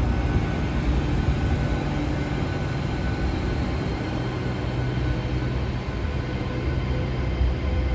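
GWR Intercity Express Train (bi-mode) beside the platform: a steady, loud low rumble from its underfloor diesel engines, with a faint steady whine over it.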